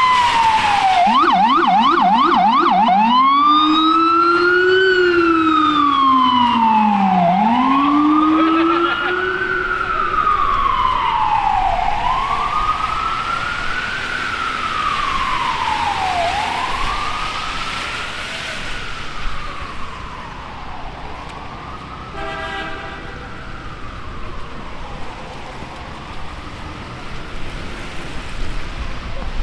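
Emergency-vehicle siren wailing in slow rising-and-falling sweeps, with a quick yelping stretch of rapid ups and downs in the first few seconds and a lower second wail under it. It fades gradually and dies out a little past the middle, leaving a steady hiss.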